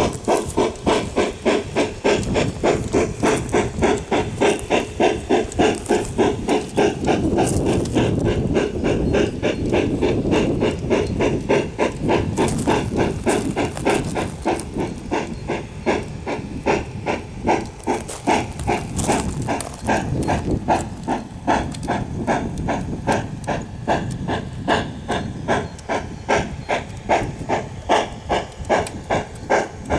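Bachmann K-27 large-scale model steam locomotive running with its newly fitted sound system, playing steady, even steam chuffs, a few each second, through its onboard speaker.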